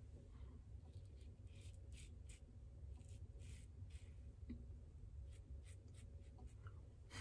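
Supply single-edge injector razor scraping through lathered stubble under the nose and around the mouth: a series of faint, short, irregular scratchy strokes.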